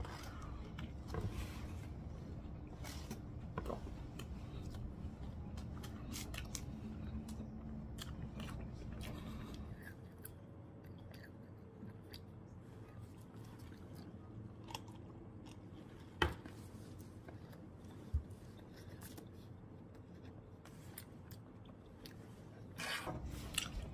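A person biting into and chewing a fried fish sandwich: soft crunches of the breaded filet and scattered small mouth clicks, with a couple of sharper ticks past the middle.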